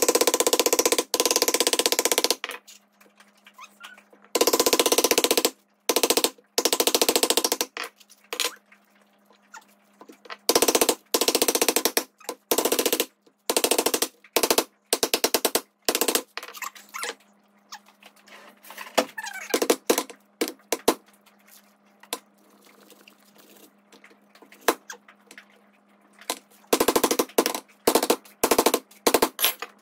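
Mallet hammering a metal coconut opener down into the shell of a trimmed young coconut, in fast runs of blows lasting a second or two, with single knocks between them.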